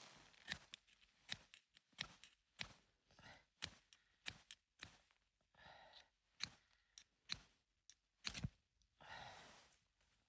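A run of short, irregular knocks and crunches, about one every half second to second, with a longer breathy swish near the end.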